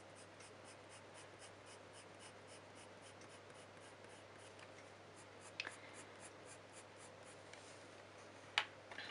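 Coloured pencil (a Caran d'Ache Pablo) making quick short hatching strokes on hot-pressed watercolour paper, a faint regular scratching at about five strokes a second that stops about 7.5 s in. Two light taps break in, about 5.6 s and 8.6 s in.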